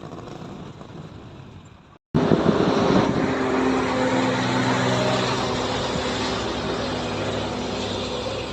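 Road vehicle noise: after a short break in the sound about two seconds in, a motor vehicle's engine comes in loud, with a steady hum over road noise that eases off slightly toward the end.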